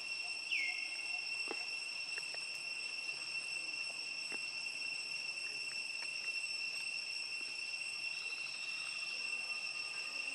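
Steady, high-pitched insect chorus droning without a break. A brief falling chirp sounds about half a second in, and a few faint clicks are scattered through it.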